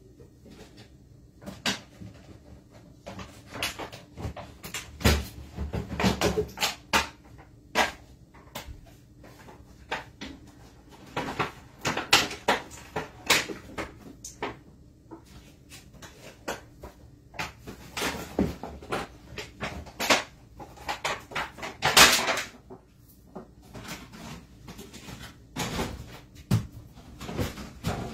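Irregular kitchen clatter: knocks and clicks of things being handled, set down and opened at a counter, with a few louder knocks, the loudest about two-thirds of the way through.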